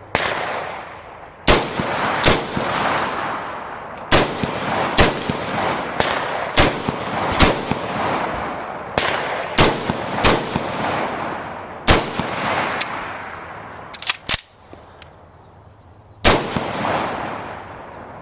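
AR-15 rifle fired shot after shot, about fourteen shots at uneven gaps of roughly half a second to two seconds, each followed by a long rolling echo. Three shots come in quick succession near the end, then a last shot after a pause of about two seconds.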